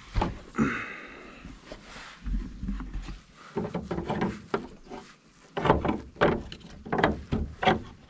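Old weathered wooden door knocking and rattling in its frame as it is pushed and tugged by its iron hasp, held shut by a lock. The knocks come thick and fast from about halfway in.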